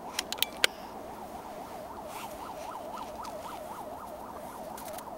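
Electronic siren in a fast yelp, its pitch rising and falling about four times a second without a break. A few sharp clicks sound in the first second, the loudest about two-thirds of a second in.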